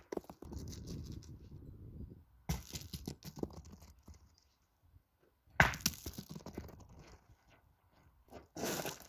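Steel pétanque boules being shot onto a gravel ground. Two sharp hits come about two and a half and five and a half seconds in, the second the loudest, and each is followed by gravel crunching and a boule rolling. There is a rough crunching burst near the end.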